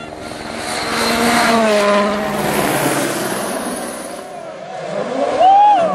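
Rally car engine at high revs, its pitch climbing over the first couple of seconds and then easing off. About five and a half seconds in, the revs flare sharply upward, the loudest moment.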